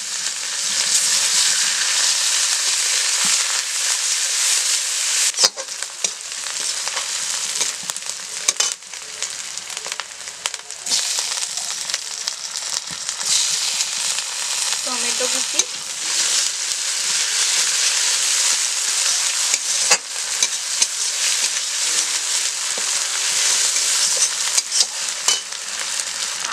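Crushed onion, then tomato pieces, frying in hot oil in a metal kadai: a steady sizzle, with a few sharp clacks of the metal spatula against the pan.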